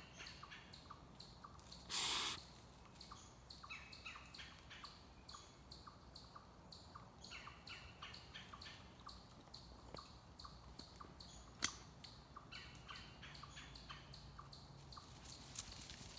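Faint chirping of small birds: short high notes, some in quick runs. There is a brief loud rustle about two seconds in and a single sharp click near the twelve-second mark.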